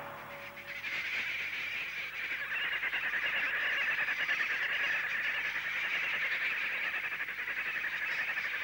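A large flock of birds calling all at once, a dense steady chatter that sets in about a second in as music fades out.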